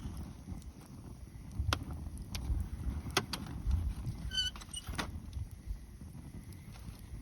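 Wood bonfire crackling: scattered sharp pops over a low, steady rumble, with a brief high-pitched squeak about four and a half seconds in.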